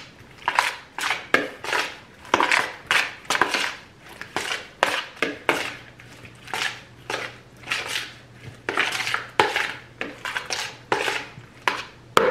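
Seasoned raw beef being stirred together to marinate, in a steady series of mixing strokes about two a second.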